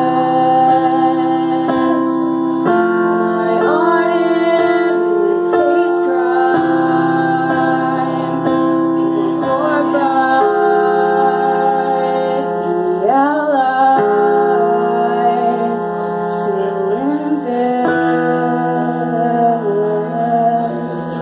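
A woman singing a slow song live, with sustained electric keyboard chords that change every couple of seconds beneath her voice.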